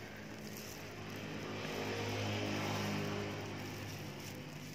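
A motor engine passing by, a steady hum that grows louder to a peak midway and then fades away.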